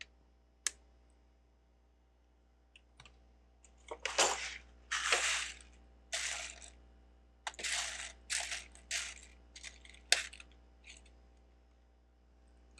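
Loose plastic Lego bricks clattering as a hand rummages and sifts through a pile of pieces. There is a single click about half a second in, then a string of short rattling bursts over several seconds, with one sharp click among them.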